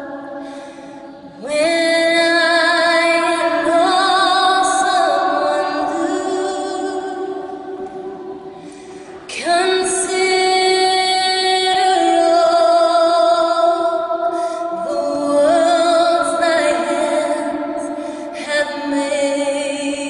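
A woman singing unaccompanied in long phrases of held notes with a wavering vibrato, her voice ringing on in the echo of a large stone church between phrases.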